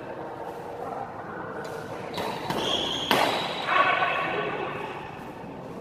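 Badminton rally in a large echoing hall: a few sharp racket-on-shuttlecock hits about two to three seconds in, the last one the loudest, followed by players' voices calling out.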